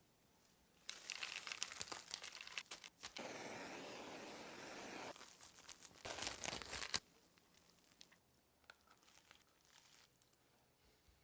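Crinkling and tearing, as of a wrapper being handled and torn open. Rustling with sharp crackles starts about a second in, a steadier hiss lasts about two seconds from around three seconds, and a last burst of crinkling comes near seven seconds, followed by a few faint ticks.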